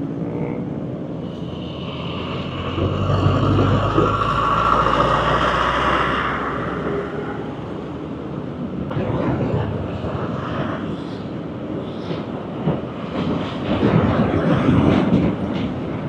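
A passing vehicle, its noise swelling over a few seconds and then fading, followed by irregular knocking and rattling.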